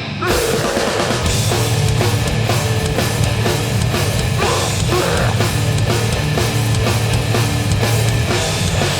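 Metallic hardcore band playing live, loud and heavily distorted: the full band crashes in with drums and cymbals just after the start, over a down-tuned guitar and bass riff.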